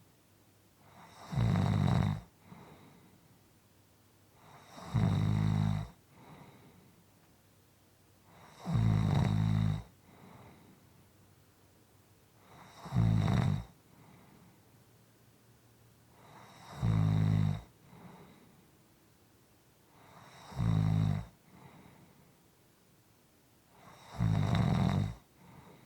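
A person snoring in an even rhythm: seven low, buzzing snores about a second long, one roughly every four seconds, each followed by a faint breath.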